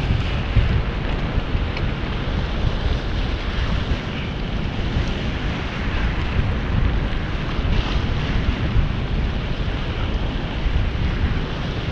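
Steady wind buffeting the microphone over choppy sea water washing around the pier pilings below, a continuous rushing noise with a fluttering low rumble.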